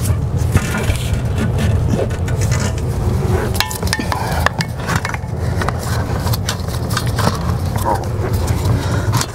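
Hands slipping small fittings back onto a Sealand RV toilet: scattered clicks, knocks and scrapes of plastic and metal parts, over a steady low hum.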